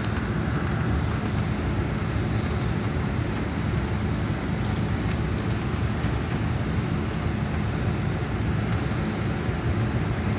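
Greyhound coach's diesel engine and road noise heard from inside the passenger cabin: a steady low drone while the bus drives.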